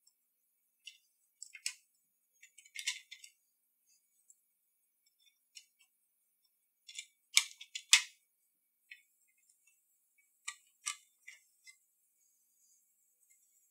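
Scattered small, sharp clicks and taps of steel tweezers and plastic parts inside a Sony WM-F63 Sports Walkman, as the flexible cable is freed and the plastic internal door cover is lifted out. The two loudest clicks come a little past halfway.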